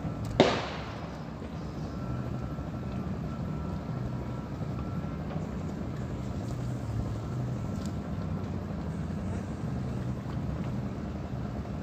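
A boat's motor running steadily. A single sharp knock about half a second in.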